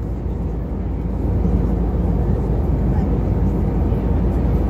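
Airbus A321 cabin noise in cruise: a steady, deep rush of airflow and jet engines heard from inside the cabin at a window seat, getting slightly louder about a second in.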